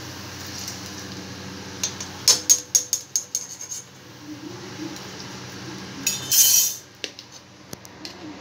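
Steel spoons clinking against a steel kadhai and pots while frying vadas: a quick run of sharp clinks about two seconds in, then a short harsh scrape of a spoon in a steel pot about six seconds in.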